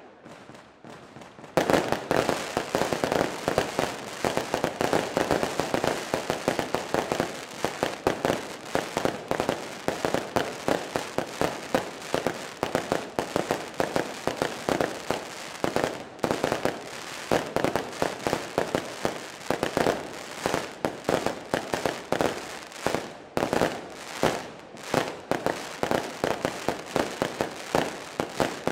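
Aerial fireworks bursting overhead with dense, rapid crackling pops from glittering crackle stars. It starts after a brief lull at the very beginning and then runs as an unbroken barrage.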